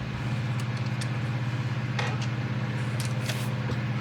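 A steady low motor-like hum with a fast flutter, with a few light clicks and taps of small plastic model parts being handled.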